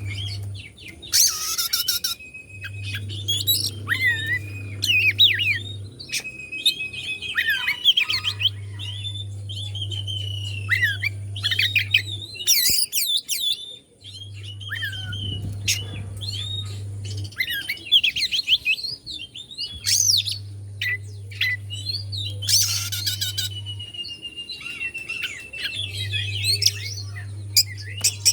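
Oriental magpie-robin singing a varied run of quick whistles, trills and harsh chirps in short phrases, with a long level whistle near the end.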